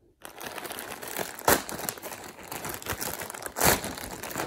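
Plastic poly mailer bag crinkling and tearing as it is ripped open by hand, with two louder rips, about a second and a half in and near the end.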